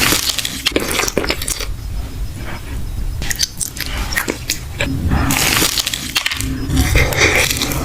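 Close-miked crunching as a crispy corn dog is bitten and chewed: rapid sharp crackles, densest near the start and again in the last few seconds.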